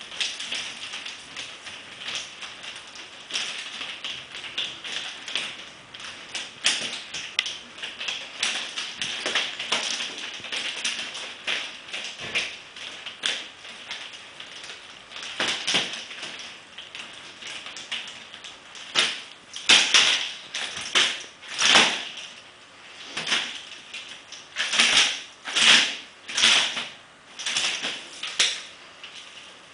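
Chain-linked nunchaku swung and spun in freestyle, with rapid light clicks and rattles of the metal chain and the sticks being caught. In the second half comes a run of louder swishes through the air, about one a second.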